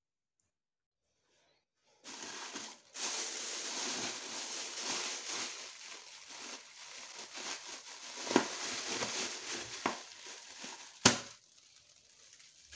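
Thin cellophane bag crinkling and rustling as it is worked off the neck of a glass jar of fermenting grape wine, starting about two seconds in. A few sharp snaps come through it, the loudest shortly before the rustling stops.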